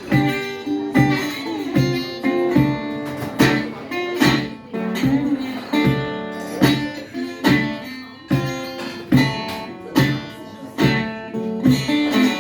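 Dobro, a resonator guitar, played instrumentally: a run of plucked notes, with some notes sliding in pitch about five seconds in.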